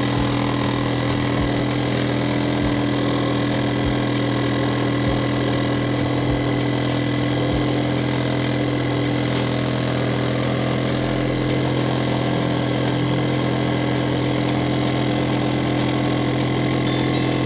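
Electric drill running steadily at low speed, driving a reciprocating saw adapter set up as a homemade scroll saw: a constant motor hum with the adapter's mechanism working the blade.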